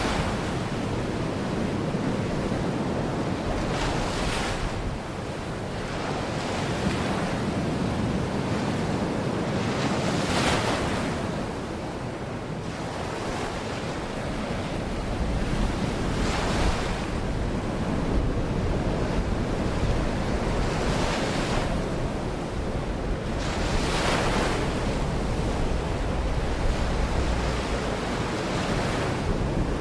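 Baltic Sea waves washing onto the shore, a wave swelling up and washing in roughly every six seconds over a steady surf noise, with a low wind rumble on the microphone.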